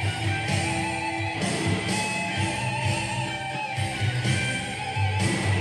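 Godin Redline HB electric guitar, freshly given a pro setup, played through an amp: a rhythmic low riff under sustained higher lead notes that waver in pitch with vibrato.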